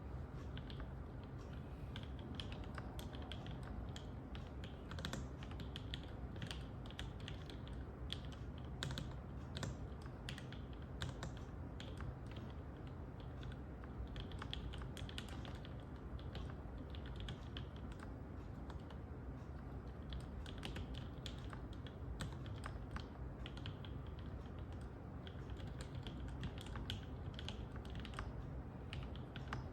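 Steady fast typing on an Orange Boy Ergo mechanical keyboard with Gateron Yellow linear switches (milky tops, lubed with 205g0) and GMK keycaps: a continuous stream of key clacks.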